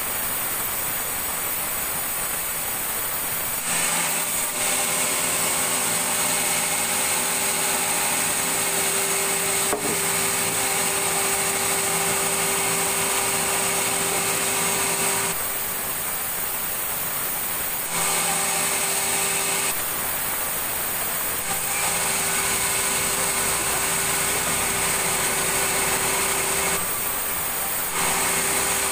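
Sawmill saw running steadily while cutting timber, with a constant high whine; its sound shifts every few seconds, a steady mid tone dropping out and coming back several times.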